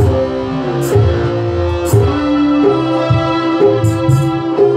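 Live band playing an instrumental piece: an electronic keyboard melody in held notes over electric guitar and hand drums, with sharp drum strokes about once a second.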